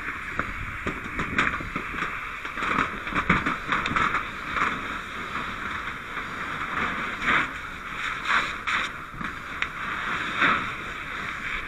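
Steady rushing hiss at a house fire being fought with hose lines, broken all through by irregular cracks and knocks.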